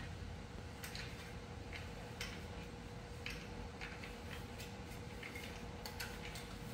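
Light, irregular ticking, about a dozen faint ticks at uneven intervals, over a steady low hum and a faint steady tone.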